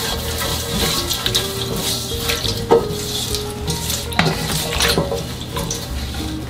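Salted seasoning water being stirred in a mixing bowl: a liquid swishing with a few light knocks against the bowl, over soft background music.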